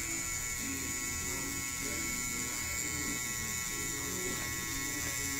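Scalp micropigmentation tattoo pen running steadily, a small electric motor driving the needle as it deposits pigment dots into a shaved scalp.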